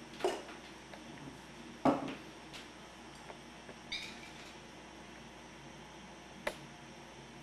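Small glass jar being handled: a few scattered faint clicks and knocks, the loudest about two seconds in, and one clink with a brief glassy ring about four seconds in.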